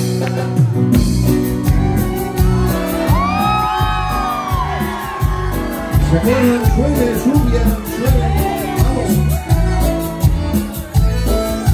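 Live band playing the instrumental intro of a tropical cumbia song, with electric guitar, bass, congas and bandoneon, heard loud from the front of the stage. Crowd voices cheer and whoop over the music, most clearly from about three seconds in.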